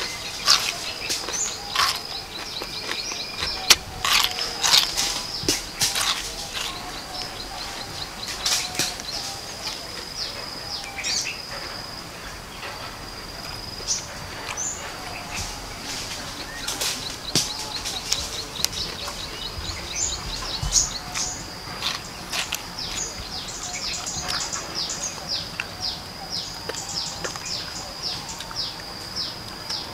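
Crunching bites and chewing of raw chayote, in repeated sharp crisp clicks, over a steady high-pitched drone.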